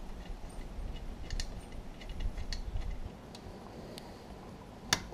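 Light metallic clicks and ticks of bolts and a small wrench as a muffler is fitted and bolted back onto a small two-stroke engine, with one sharper click near the end.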